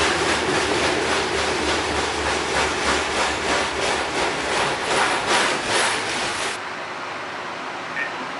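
Siemens S70 streetcar running on its rails, heard from inside the car: a loud rush of wheel-and-rail noise pulsing in a steady beat, a few times a second. About six and a half seconds in it cuts abruptly to a quieter, steady hum.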